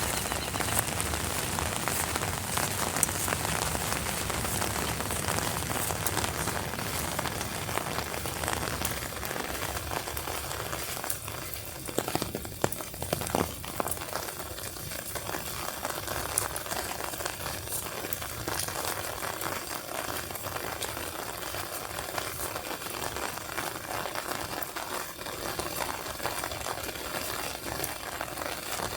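Steady rain falling, a dense patter of many small drop impacts, with a few louder knocks about twelve to thirteen seconds in.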